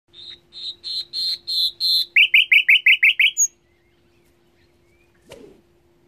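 A songbird sings one phrase: about six clear whistled notes growing louder, then a quick run of short descending notes ending in a brief high note, lasting about three and a half seconds. A single soft thump follows about five seconds in, over a faint steady hum.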